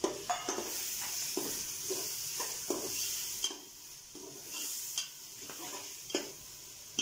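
Slotted metal spoon stirring split red lentils through hot oil and masala in an aluminium pressure cooker: a steady frying sizzle with repeated scrapes and knocks of the spoon against the pot, the sizzle dropping for about a second just past halfway.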